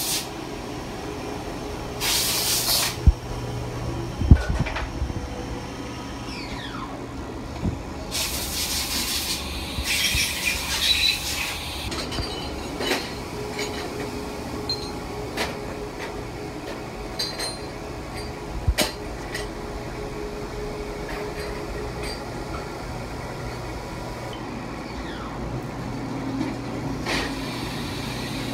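Steady hum of a powered-up CNC vertical machining center, with three short bursts of hiss and a few sharp knocks.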